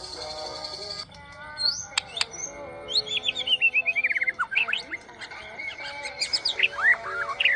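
White-rumped shama (murai batu) singing: a varied string of whistled notes and sharp chirps, with a fast run of notes falling steadily in pitch about three seconds in.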